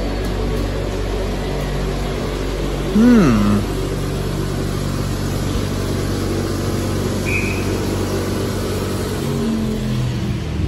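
Class 444 Desiro electric multiple unit standing at the platform with its onboard equipment humming steadily in several steady tones as the train is being switched off. A short, louder whine rises and falls about three seconds in.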